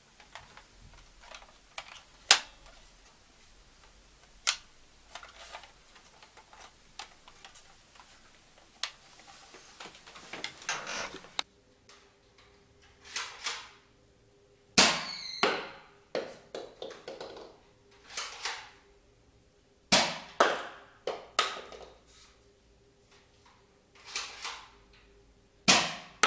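Nerf Zombie Strike Sidestrike spring-powered single-shot dart blaster being fired, three sharp pops about five seconds apart. Each pop is followed by smaller clicks and knocks as the foam dart lands and skitters across the hard floor. Softer clicks come in the quieter stretches between shots.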